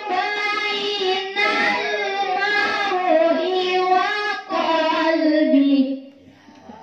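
A young female voice chanting Quranic recitation in the melodic tilawah style, with long held phrases and ornamented turns. The last phrase falls in pitch and ends about six seconds in.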